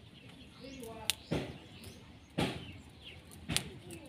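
Four sharp cracks about a second apart as a twig is broken off a tree, with birds chirping faintly.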